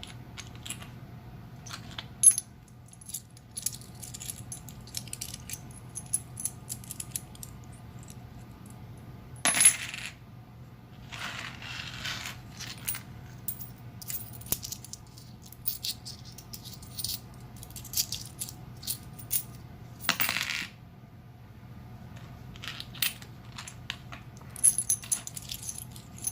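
Pre-1965 90% silver US quarters clinking over and over in a ring test. The sharp metallic clinks leave a high ringing after them, and a few strikes are much louder than the rest. The test is meant to tell silver coins from modern clad ones by their ring.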